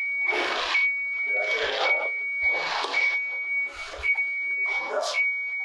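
Reversing alarm of a work vehicle beeping steadily, a high single-pitched tone repeating about once a second with only short breaks, as the vehicle backs up.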